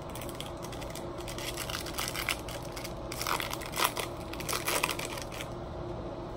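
Stiff glossy Topps Chrome baseball cards being thumbed through by hand, sliding and flicking against one another in a run of quick crisp rustles and clicks, busiest about halfway through.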